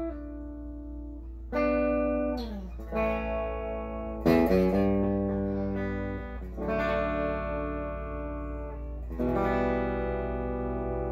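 Electric guitar through an overdriven Marshall DSL20HR tube amp, with the guitar's volume knob rolled back to about 7 and its tone at about 8 for a cleaned-up, lightly driven sound. About six chords are strummed and left ringing, some moved by sliding up or down the neck, over a steady low amp hum.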